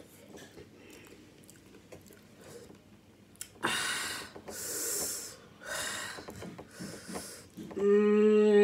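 A woman's heavy, noisy breaths and sniffs, three in a row, as the heat of the spicy nachos makes her nose run, followed near the end by a short hummed "mmm".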